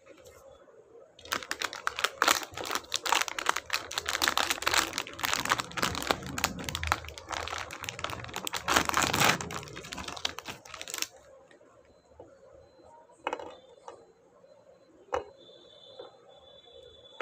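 Plastic ice cream bar wrapper crinkling and crackling as it is torn open and peeled off the bar, starting about a second in and stopping at about eleven seconds. Two single light taps follow near the end.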